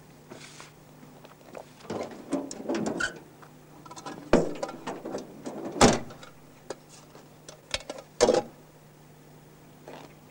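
Knocks, scrapes and thumps of a car tyre and bodywork being handled, with a few sharp bangs, the loudest about six seconds in.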